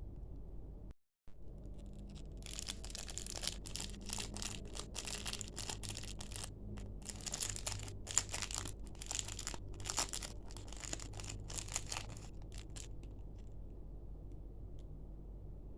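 Plastic packaging being handled, crinkling and tearing in a run of quick crackles that stops a few seconds before the end.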